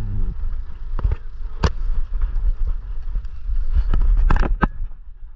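Handling rumble from a GoPro in a harness on a dog's back as the dog moves, with a handful of sharp clicks and knocks from the mount.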